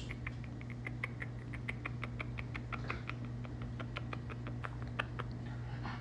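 Rapid string of small smacking clicks, about six a second, from a baby spider monkey mouthing and kissing a man's lips, over a steady low hum.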